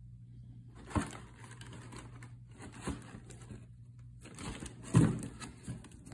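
Cardboard shoebox being handled and turned over in gloved hands: scraping and rustling, with knocks about a second in and near three seconds, and a louder thump about five seconds in. A steady low hum runs underneath.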